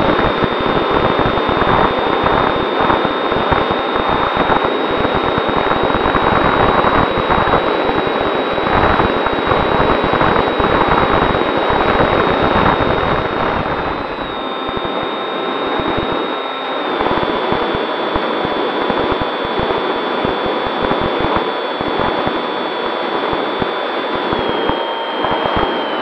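RC foam plane's electric motor and propeller whining steadily in flight, heard through the onboard camera with heavy wind rush on the microphone. The whine steps down in pitch a few times in the second half as the throttle is eased back.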